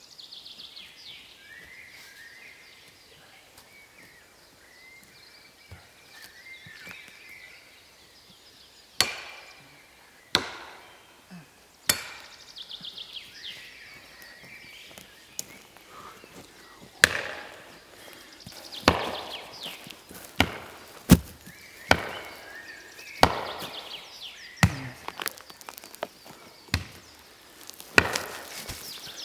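Axe chopping into a wooden log: a few separate sharp strikes about a third of the way in, then a strike every second or two through the second half. Birds sing between the strikes.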